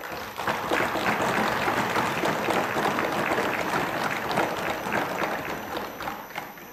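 A chamber full of legislators applauding, a dense patter that starts suddenly and dies away near the end.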